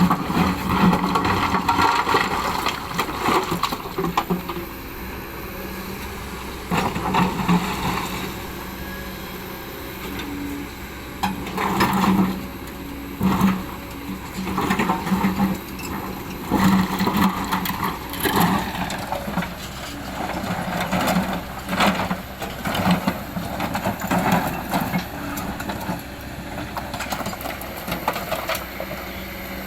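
Excavator diesel engine running, with repeated louder surges every few seconds as it loads up while working.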